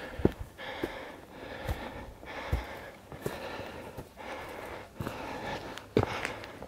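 A hiker breathing hard, in and out in repeated hissing breaths, with the dull thud of boot footsteps on the mountain trail.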